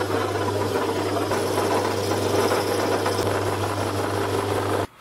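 Metal lathe running with a steady motor hum while a cutting tool turns a wooden blank. It stops abruptly just before the end.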